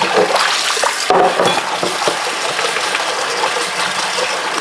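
Tap water running steadily over boiled fresh Chinese noodles in a sink as they are rinsed to wash the starchy slime off their surface.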